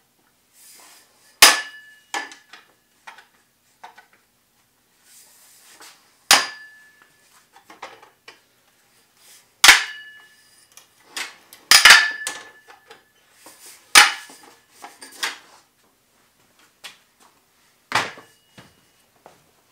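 Folding metal miter saw stand being unfolded and set up: a series of sharp metal clanks, about eight loud ones spread out with quieter clicks between, several ringing briefly.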